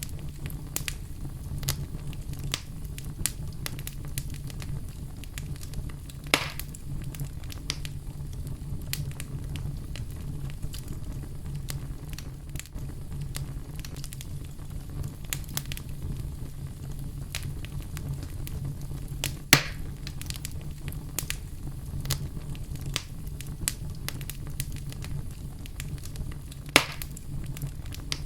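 Wood fire burning in a fireplace: a steady low rumble of flames with continual small crackles and a few loud sharp pops of burning wood, three of them standing out.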